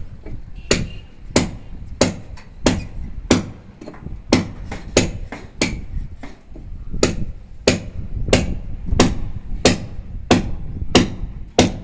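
Hammer blows in a steady rhythm, about three every two seconds with a short pause about halfway through: a hole being knocked through a wall for the hot-water pipe.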